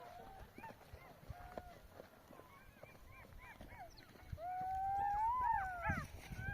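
A chorus of jackals yipping, many short high calls overlapping. About four seconds in, a long wailing howl joins them and the chorus gets louder, the howl rising and then falling in pitch.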